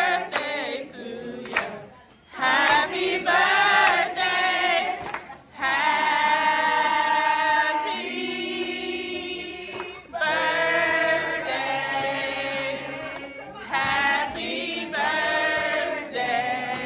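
A group of people singing together, mostly unaccompanied, in long held notes with short breaks between phrases.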